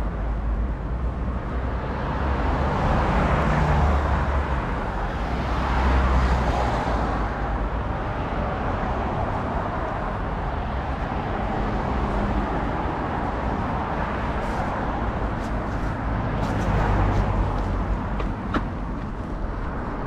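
City street traffic: cars passing on the road over a steady traffic hum, swelling and fading as each goes by, loudest a few seconds in and again near the end.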